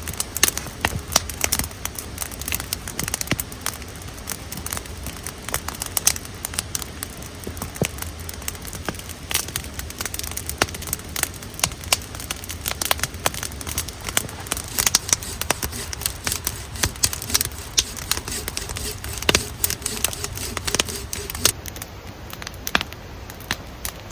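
Wood campfire crackling, with frequent irregular sharp pops over a steady low rumble.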